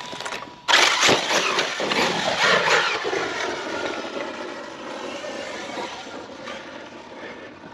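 Arrma Fireteam RC truck's brushless electric motor and drivetrain whining loudly at full throttle. It cuts in suddenly about a second in, then the whine falls in pitch and fades over the next few seconds.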